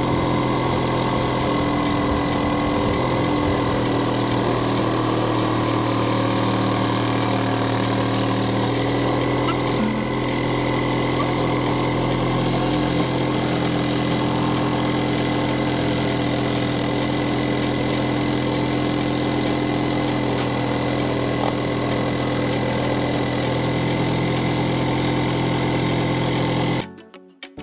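Electric drill driving a reciprocating-saw adapter rigged as a scroll saw, running steadily at low speed with an even motor hum. It cuts off abruptly near the end.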